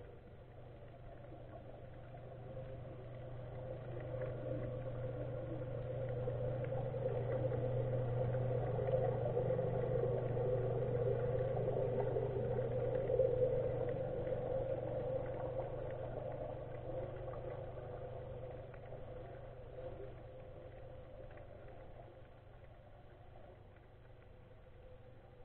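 A motorboat's engine and propeller heard underwater, a low hum with a steady mid tone that grows louder over several seconds, peaks about halfway through and fades away as the boat passes.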